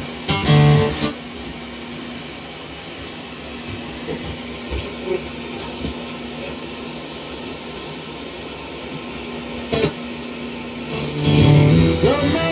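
FM tuner of a 1976 Pioneer SX-750 receiver being swept across the band with no antenna: a steady hiss of interstation static, broken by brief snatches of broadcast music about half a second in and near ten seconds, and a station coming in more strongly with music in the last second and a half.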